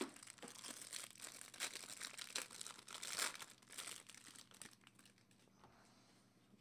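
Clear plastic wrapper of a trading-card pack crinkling and tearing as it is pulled open and the cards are slid out, the crackle dying away about five seconds in.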